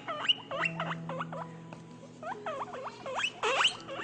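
Guinea pig wheeking: a rapid run of short, high squeaks, each sliding steeply down in pitch, about three or four a second, with a brief pause about halfway through.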